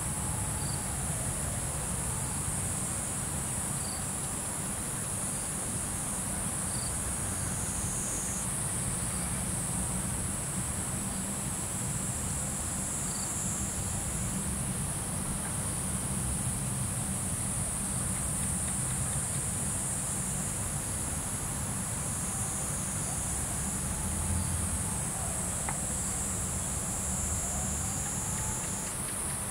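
Steady high-pitched chorus of insects calling without pause, with a low steady rumble underneath.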